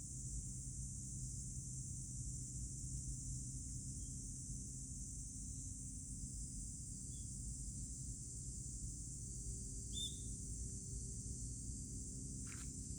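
Steady high-pitched drone of summer insects, likely cicadas, over a low steady hum, with a few brief high chirps.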